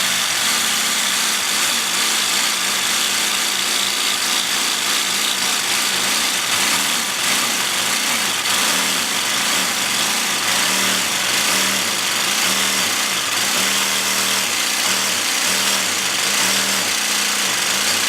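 Cordless jigsaw with a diamond-grit hard-tile blade (Bosch T130DG) cutting wet ceramic tile, a steady grinding rasp throughout. The motor's pitch rises and falls again and again as the trigger is eased on and off to push the blade forward.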